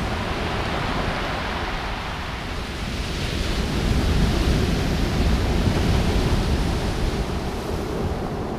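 Surf breaking and washing up a steep pebble beach, a steady wash of noise that swells louder about midway, with wind rumbling on the microphone.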